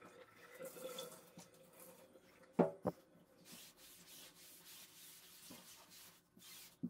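Sponge scrubbing a wet, soapy cloth mouse pad in a bathtub, faint rubbing and water sounds. Two sharp knocks come close together about two and a half seconds in.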